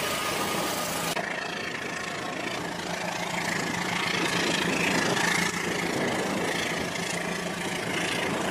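Battery-powered Rail King toy train running along plastic track, its small motor and wheels making a steady whirring hum that grows a little louder midway as it nears. A high hiss cuts off about a second in.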